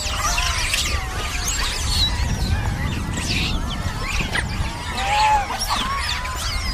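A troop of rhesus macaques calling all at once as they crowd in for food: many short, overlapping high squeals and chirps, over a low steady rumble.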